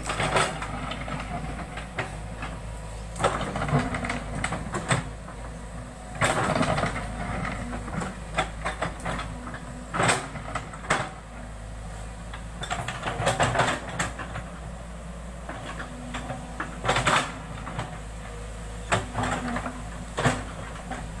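Foton tracked excavator's diesel engine running steadily while the steel bucket digs, with irregular clanks and scrapes of metal against rock and soil coming every few seconds.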